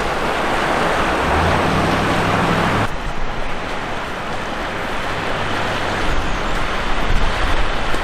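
Steady rush of flowing river water, with a sudden change in its sound about three seconds in.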